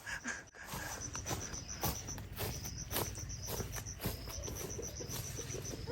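An insect calling in trains of rapid high chirps, about ten a second, that stop and start. A low steady hum and scattered clicks run underneath.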